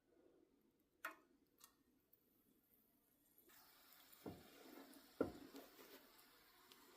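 Faint kitchen sounds: two light clicks, then a faint steady sizzle of fritter batter frying in hot oil starts a few seconds in, with two knocks of a utensil against the pan.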